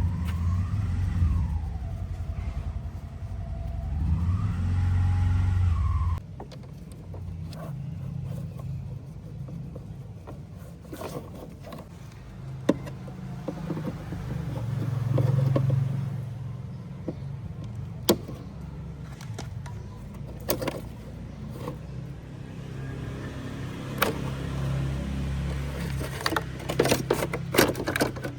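Refrigerator condenser fan motor running with a loud low hum and a whine that wavers up and down in pitch, the big bad sound of a defective motor. It cuts off abruptly about six seconds in, leaving quieter scattered clicks and knocks with a low hum now and then.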